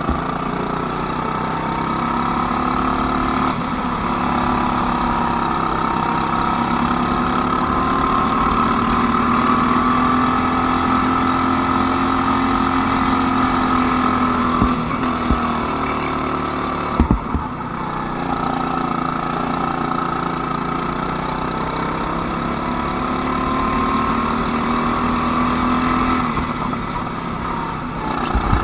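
Go-kart engine running under way, its pitch slowly rising and falling as the kart speeds up and slows again. A sharp knock about 17 seconds in.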